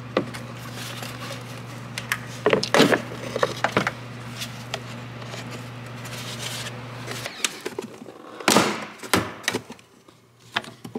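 Hard plastic engine-bay pieces knocking and clicking as they are handled and pulled out, in scattered clusters, over a steady low hum that stops about seven seconds in.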